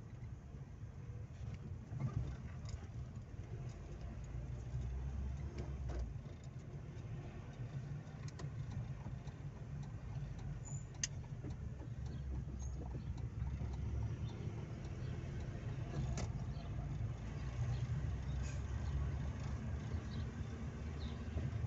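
Steady low rumble of a car driving, heard from inside the cabin, with a few light clicks and knocks.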